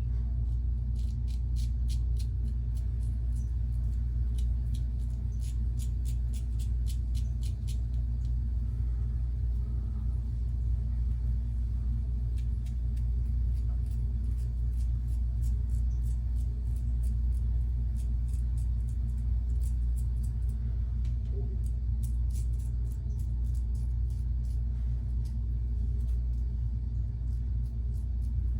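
Weck razor's blade scraping through lathered stubble in many short, quick upward strokes, each a brief crackly rasp. A steady low rumble runs underneath and is the loudest thing.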